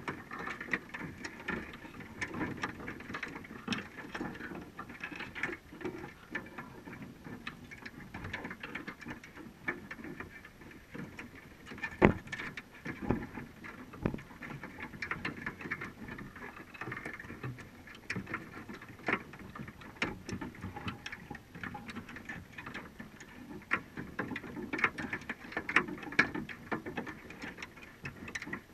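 Irregular clicking and ticking of crabs' shells and legs against the wire mesh of a crab trap and its bait cage, heard underwater through a waterproof camera housing, with one louder knock about twelve seconds in.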